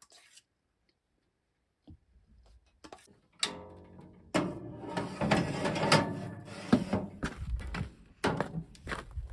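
Cast-iron frying pan pushed onto the wire rack of a small electric countertop oven, a short metallic scrape with a brief ring, followed by several seconds of loud rustling and knocking handling noise.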